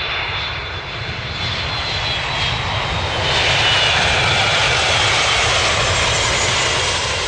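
Jet airliner's engines on the landing roll: a broad rushing noise with a thin high fan whine. It grows louder about three seconds in.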